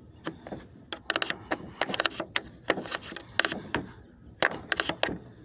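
Old wood chisel prying up the sides of a scrap radiator to free the plastic: a run of sharp clicks and snaps that come in quick clusters every second or so.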